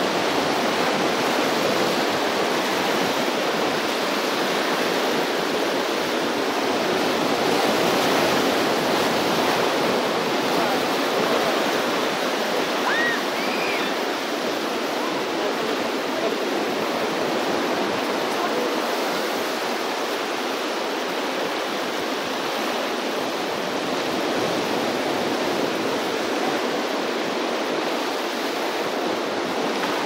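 Ocean surf: swell waves breaking and washing ashore in a steady rush of water, swelling a little about eight seconds in.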